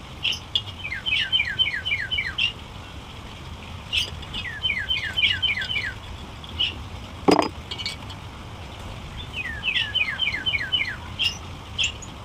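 A songbird singing phrases of five or six quick notes, each note falling in pitch, repeated three times with single chirps between. One sharp knock about seven seconds in is the loudest sound.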